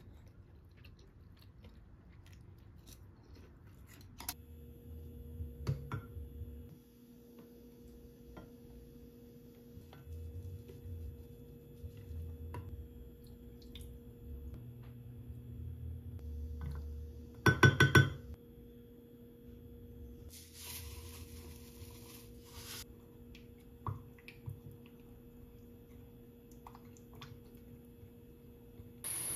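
Seasoning sauce being mixed in a glass mug: soft taps and clicks of a wooden spoon over a steady low hum, with a cluster of loud, ringing glassy clinks about two-thirds of the way in and a brief hiss a few seconds later. Faint chopstick and eating clicks open it.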